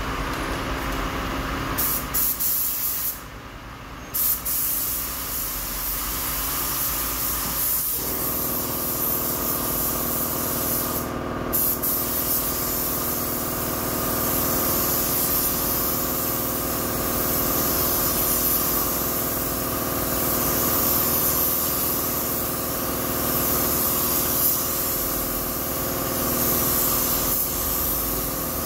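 Compressed-air paint spray gun hissing as it lays clear coat onto a bus panel, the hiss swelling and easing with each pass, over a steady machine hum.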